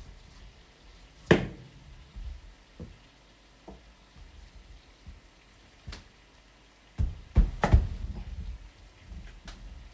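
Kitchen handling noises: a sharp knock a little over a second in, a few light taps, then a quick cluster of knocks and clatter about seven seconds in.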